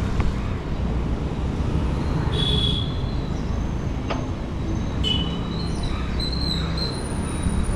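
Steady low rumble of wind on the microphone of a camera riding on a moving bicycle, with road noise beneath. A few short high-pitched squeaks come about two and a half, five and six and a half seconds in, and a single sharp click about four seconds in.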